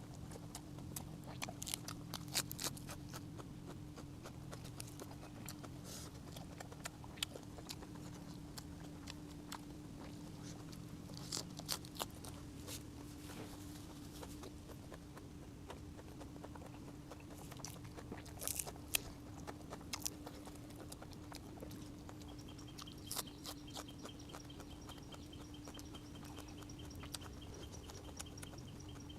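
Close-up eating sounds: scattered wet clicks and crunches of chewing, most likely on steamed egg-bearing squid, over a steady low hum.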